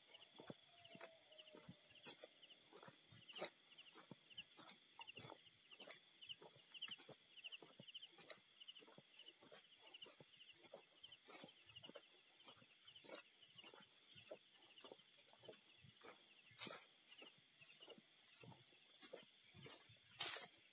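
Faint night chorus of frogs and insects: rows of rapid pulsed trills and steady high insect tones, with many scattered sharp clicks and a louder brief crackle near the end.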